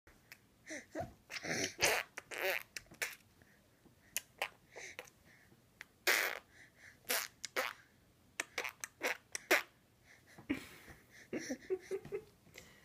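A baby making funny mouth noises: many short noisy bursts at irregular intervals, some of them squeaky.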